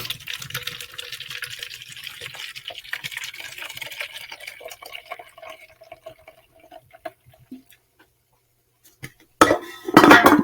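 Bud Light Platinum Seltzer poured from the can into a cup: liquid splashing and fizzing, with a faint tone that rises as the cup fills. The fizz then dies down to a sparse crackle, and a brief louder noise comes near the end.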